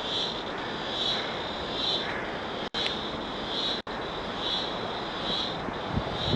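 Steady rushing roar of a waterfall, with a high insect chirp pulsing about once a second over it. The sound drops out for an instant twice.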